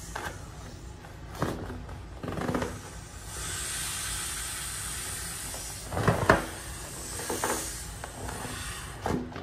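Air hissing out through the valve of an inflatable vinyl beach ball as fingers pinch it open, mixed with squeaks and rubs of the vinyl under the hands. The loudest handling squeaks come about six seconds in.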